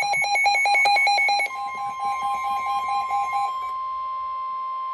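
Emergency alert tones: a fast, shrill beeping alarm fades out while a steady single-pitch tone comes in about a second and a half in and holds, the 1050 Hz NOAA Weather Radio warning alarm that comes before a broadcast warning.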